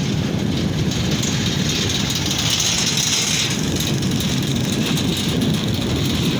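Heavy construction machinery's diesel engine running steadily with a low rumble, and a band of hiss that swells and fades in the middle.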